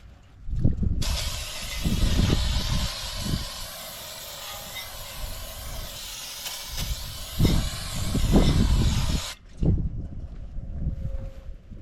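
Aerosol can of brake cleaner spraying in one long, steady hiss lasting about eight seconds, washing sanding dust and rust off the wheel hub bore, with low bumps and rumbles of handling underneath. The hiss cuts off abruptly.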